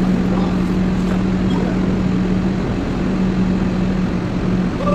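Heavy equipment engine running steadily, with a constant low hum over a rumble.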